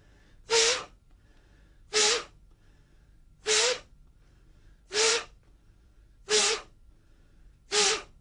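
A man's sharp, forceful breaths, six in all, one about every second and a half, each a short rush of air with a brief voiced edge. This is the 'xing qi' (qi-rousing) breathing of Emei Pai Da Gong, timed to a waist-driven turn of the fist.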